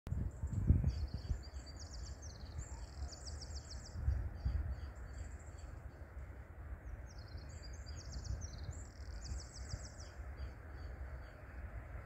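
A small songbird singing two long phrases of rapid, high, repeated chirps and trills, one early and one in the second half, over a steady low rumble that swells about a second in and again around four seconds.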